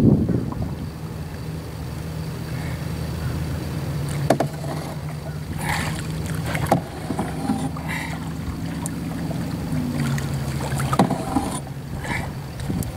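Canoe being paddled with a double-bladed paddle: the blades dip and splash, with several short knocks and splashes a second or two apart. Under it runs a steady low hum.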